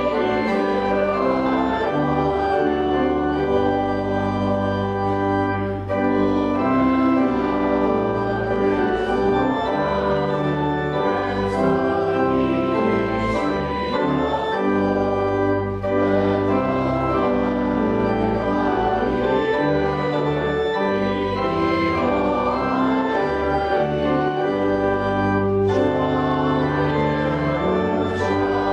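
Church organ playing a slow piece in sustained chords, the chords changing every second or two.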